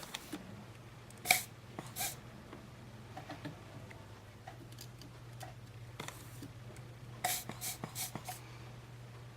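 Sharp clicks and taps of hand tools at work desoldering components from a circuit board: a loud click about a second in, another shortly after, and a quick run of five or so near the end, over a steady low hum.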